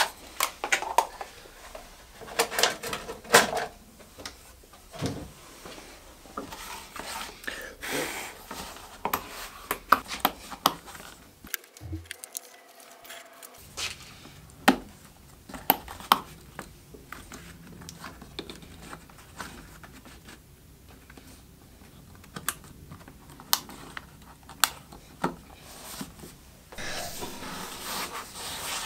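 Hands working a leather saw sheath and a pax saw on a cutting mat: scattered taps, clicks and light knocks. Near the end, a rubbing hiss as the saw blade is slid into the leather sheath.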